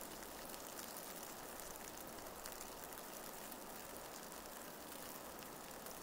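Heavy wet snowfall pattering, a steady fine hiss with many faint ticks.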